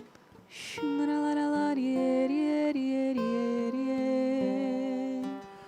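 Slow, soft worship music: a single voice holds long notes of a gentle melody, coming in about a second in and fading shortly before the end.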